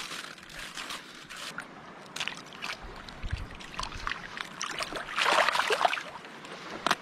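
Water sloshing and trickling as hands break apart and rinse a cooked mud crab in shallow water, with scattered small clicks and cracks. There is a louder, splashier stretch about five seconds in.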